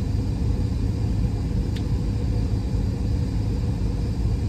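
Van engine idling, a steady low rumble heard from inside the cab, with a faint click about two seconds in.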